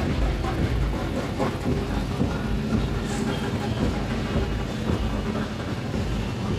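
Steady low rumble of a large street crowd, with scattered indistinct voices.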